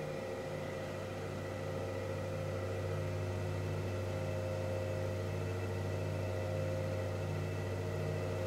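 Grizzly G0555 14-inch woodworking bandsaw, with its 1-horsepower motor, just switched on and running smoothly: a steady motor and wheel hum with a slow, even pulse in it.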